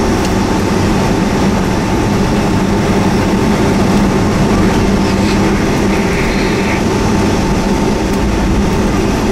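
Cabin noise of a Boeing 757-200 taxiing, heard from a window seat over the wing: its Rolls-Royce RB211 turbofans running at low taxi power, a steady hum with a faint steady whine.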